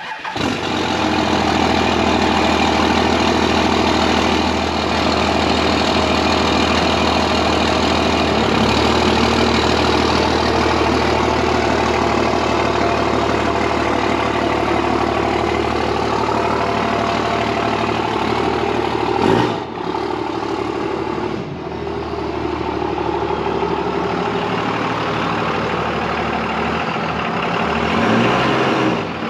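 2001 Dodge Ram 2500's 24-valve Cummins inline-six turbo diesel idling steadily. It briefly changes pitch about two-thirds of the way through and rises and falls again near the end.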